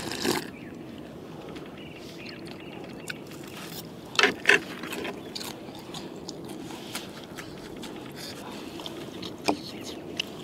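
Close-up eating sounds: a slurp from a bowl of eel congee at the start, two loud short mouth noises about four seconds in, and a sharp click near the end.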